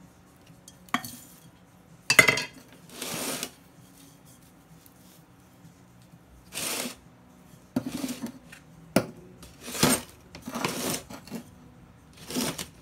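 A plastic scoop scraping and shoveling potting mix out of a plastic tub and pouring it into a terracotta pot in several short gritty pours, with a few sharp knocks of the scoop and pot against hard surfaces.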